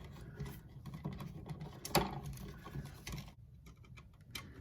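Small clicks and scrapes of a copper ground wire being worked under the ground screw and brass clamp plate of a GFCI outlet, with one sharper click about two seconds in.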